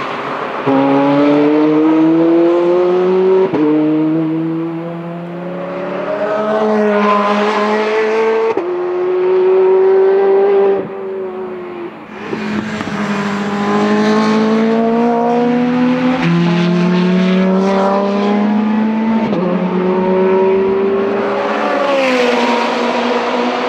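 Ferrari 430 Scuderia's 4.3-litre V8 accelerating hard through the gears: the engine note climbs steadily and drops sharply at each quick upshift, several times over, with the pitch falling away near the end.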